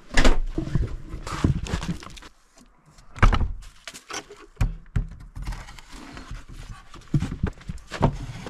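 Irregular knocks and thuds, with quieter rattling and handling noise between them, as a cabin is shut and locked up: the door and its fastenings being closed.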